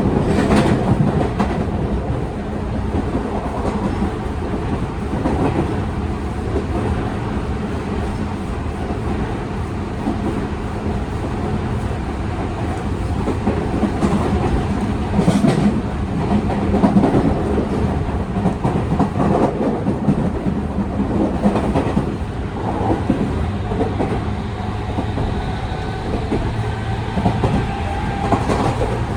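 Tokyu 5000 series electric train heard from inside a motor car while running at speed: a steady rumble of wheels on rail, with clacks as the wheels pass rail joints, a few of them louder, near the start and at about the middle.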